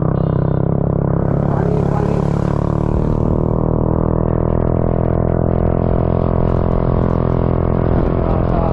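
Motorcycle engine running at a steady speed, a constant drone with many even tones.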